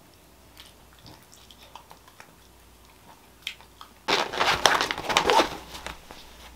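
A canvas tote bag being handled and rustled: about four seconds in, a sudden burst of crinkly rustling that lasts a little under two seconds, after a few faint small clicks.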